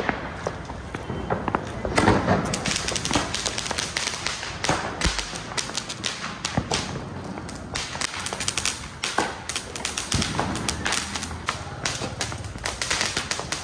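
Ground-lit firework going off: a loud burst about two seconds in, then a long run of many sharp cracks and pops as its sparks shower out.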